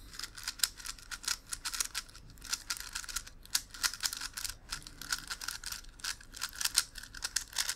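Plastic megaminx puzzle being turned quickly by hand: a fast, uneven run of sharp clicks and scrapes from its layers.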